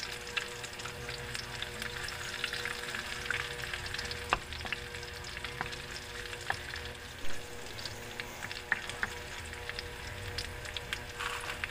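Chopped garlic, onion, bay leaves and black pepper sizzling and crackling in hot canola oil in a wide metal wok, with scattered pops, while a wooden spatula stirs them.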